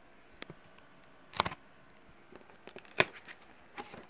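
Cardboard box being handled and opened by hand: a few short rustles and knocks of cardboard, the sharpest about three seconds in.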